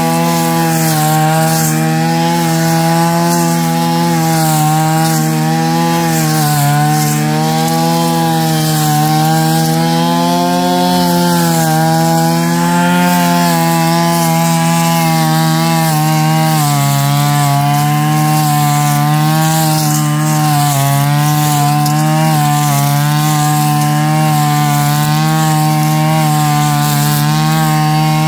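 Engine-driven brush cutter with a metal blade running at high speed, its pitch sagging and recovering as the blade bites into thick grass and brush.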